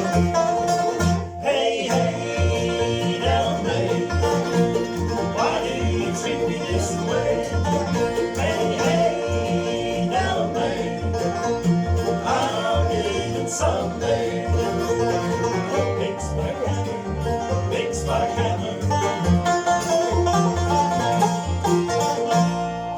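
Bluegrass band playing an instrumental passage, with banjo and guitar picking over a steady bass.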